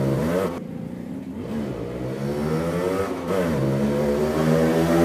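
Yamaha RX100's two-stroke single-cylinder engine pulling through the gears. Its note drops about half a second in, rises, dips again at a gear change about three seconds in, then climbs once more.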